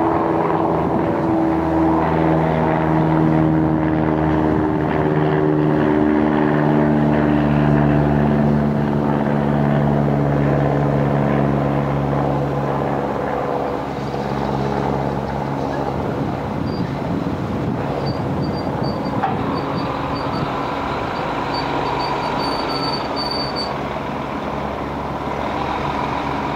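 A large engine's steady drone of several tones, slowly dropping in pitch and fading about halfway through, leaving a rougher background hum with a faint whine that rises and falls near the end.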